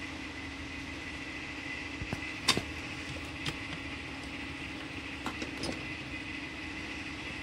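Steady workbench hum, like a fan running, with a few light clicks and taps of small parts being handled; the sharpest click comes about two and a half seconds in.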